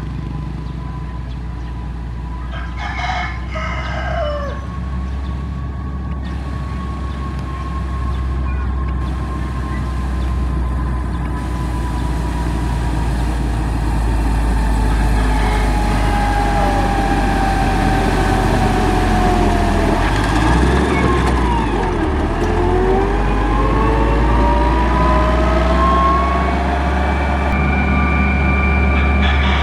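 Heavy diesel engine of a motor grader running with a steady low rumble, louder in the second half, with whining tones that slide down and then up in pitch in the middle. A rooster crows about three seconds in and again near the end.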